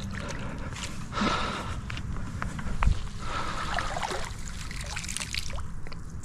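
Water trickling and sloshing, with a few light knocks, the loudest about three seconds in.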